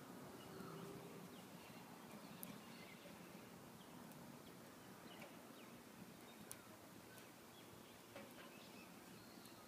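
Near silence: faint room tone with a few faint ticks.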